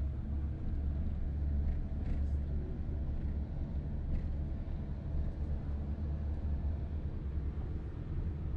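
Diesel vehicle driving through a tunnel, heard from inside the cabin: a steady low engine and road rumble.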